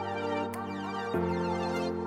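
Electronic background music: held synthesizer chords over a light beat, the chord changing about a second in.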